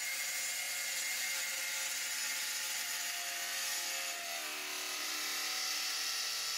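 Soviet-made 1980s circular saw running and cutting 8 mm plywood: a steady whine with a hiss.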